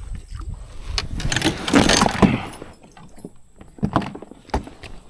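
Knocking and rushing noise from a fishing kayak: a swish that swells and fades, then a couple of sharp knocks on the hull.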